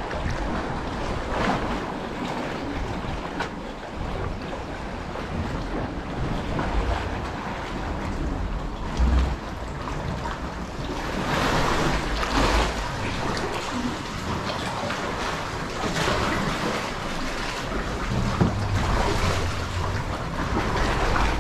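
Sea water lapping and splashing around a kayak, with irregular splashes from paddle strokes, over wind buffeting the microphone.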